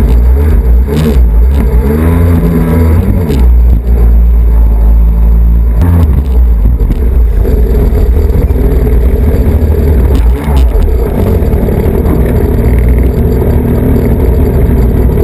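Kawasaki Jet Ski engine running at speed, its pitch rising and falling over the first few seconds as the throttle changes, then holding steadier. Heavy wind rumble on the bow-mounted camera's microphone runs under it.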